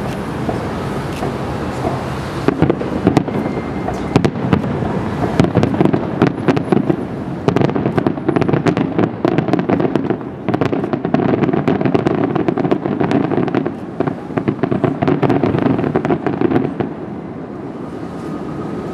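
Aerial firework shells bursting again and again, with dense rapid crackling, stopping about two seconds before the end and leaving a steady background noise.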